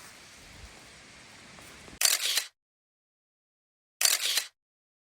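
Camera shutter sound, twice, two seconds apart, each a short bright click-and-snap about half a second long, after faint outdoor ambience.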